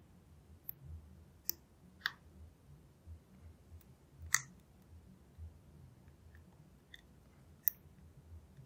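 Scattered sharp clicks of a lock pick and tension wrench working the pin stack in a Brady lockout padlock's keyway, about six in all and irregularly spaced, the loudest a little past the middle.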